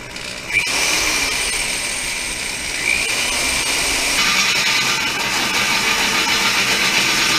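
Corded electric drill with a hole saw cutting into the steel frame. It starts about half a second in and runs steadily under load, with a high squealing metal-cutting tone.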